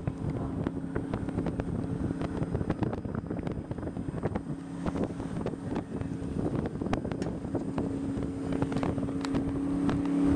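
Cruise boat's engine running with a steady hum that grows louder near the end, under wind buffeting the microphone.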